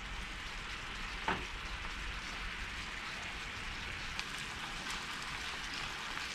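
Speckled trout fillets sizzling steadily in a skillet of honey-lemon butter sauce, a continuous even hiss. A faint click about a second in.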